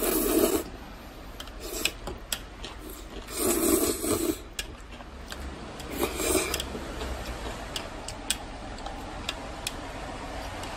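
Close-miked eating of jjajangmyeon (black-bean-sauce noodles): three short, loud mouth noises about three seconds apart, the noodles and pickled radish being slurped and chewed. Between them, metal chopsticks click and scrape against the bowl.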